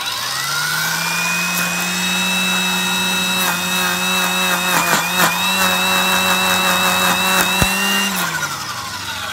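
Kobalt 80V cordless trimmer with a Badgerhead metal-reinforced blade head. Its electric motor spins up to a steady high whine, with sharp knocks and a slight dip in pitch as the blades strike weed stems and brush, then spins down near the end.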